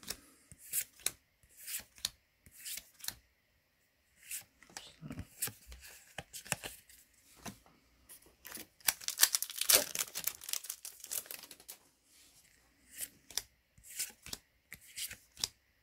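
A foil Yu-Gi-Oh booster pack is torn open in a dense crinkling rip about nine seconds in. Scattered short clicks and rustles of trading cards being handled come before and after it.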